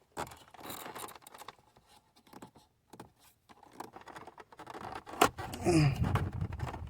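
Scattered plastic clicks and rattles as the wiring harness connector is worked loose from the back of a Mercedes C240 (W203) instrument cluster; its connector has a push-button latch that has to be pressed to release it. A sharp click comes about five seconds in, followed by a short voiced grunt.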